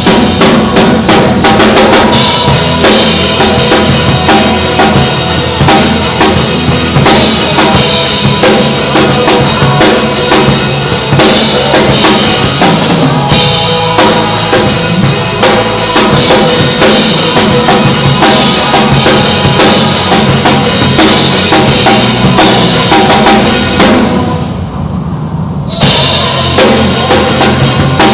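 Drum kit (kick, snare, toms and cymbals) played hard and continuously over a pop-song backing track. About 24 seconds in, the drums and cymbals stop for nearly two seconds while the low end of the backing track carries on, then the kit comes back in.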